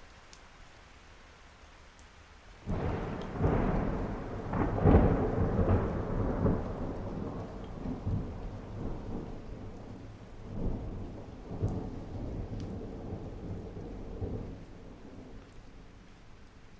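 Thunder over steady rain. A sudden clap about three seconds in rolls on as a series of deep rumbles, loudest a couple of seconds after it breaks, and dies away over about ten seconds.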